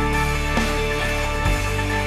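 Background music: held chords over a soft, steady beat.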